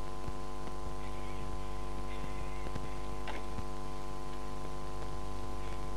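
Steady electrical hum, a low buzz with many even overtones that holds unchanged throughout. Faint brief rustles come and go over it, with one sharp click a little over three seconds in.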